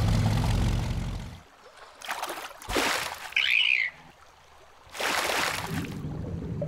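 Cartoon sound effects: a vehicle engine hums steadily and stops about a second and a half in. Water splashes follow, with a short falling dolphin whistle in the middle, and a rushing splash comes near the end.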